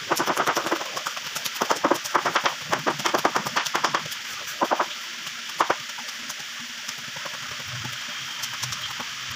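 Loose gravel crunching and rattling: a quick, irregular run of sharp clicks for about four seconds, then a few scattered clicks before it settles to a low steady background.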